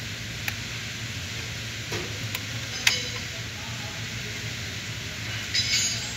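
Steady hiss with a low hum underneath, broken by a few sharp metallic clicks of hand tools in the first three seconds and a short metal rattle near the end.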